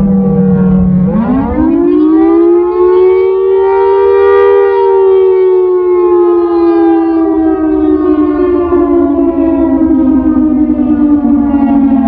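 Siratone EOWS 612 electronic siren pitch-shifted down by half to imitate a Carter air raid siren, sounding the attack wail. The low tone rises quickly about a second in, then falls slowly.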